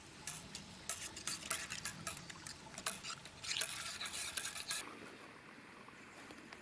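Metal spoon stirring soup in a small camp cookpot, with quick irregular clinks and scrapes against the pot's sides and bottom, which then stop.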